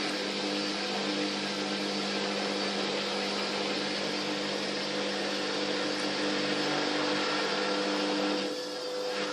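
Fagor washing machine running, its motor giving a steady hum with a rushing noise over it, which eases off and changes about eight and a half seconds in.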